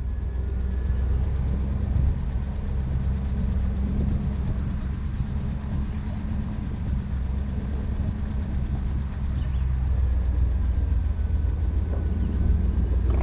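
Jeep Grand Cherokee driving slowly along a dirt trail, its engine and drivetrain making a steady low rumble.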